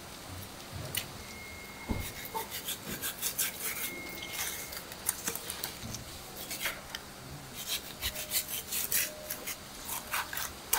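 Large knife scraping and slicing along skinned fish fillets on a wooden cutting board. It is a quick run of rasping strokes that begins about two seconds in.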